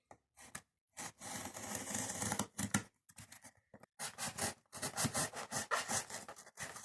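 Small knife sawing and slicing through a cardboard box, with rough scratching and tearing in two long stretches, the first about a second in and the second from about four seconds on.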